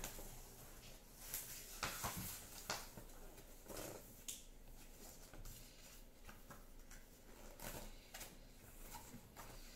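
Faint, scattered rustles and small clicks of printed paper pages being handled and turned.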